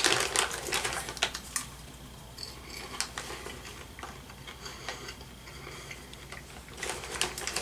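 Plastic popcorn bag crinkling as a hand reaches in, then scattered quiet crunches and clicks of popcorn being chewed.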